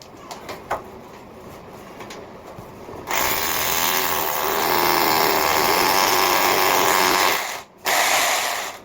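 Power drill turning a concrete hole saw cutting into a wall. A few light clicks, then the drill starts about three seconds in and runs loudly for about four seconds, stops briefly, and runs again for under a second near the end.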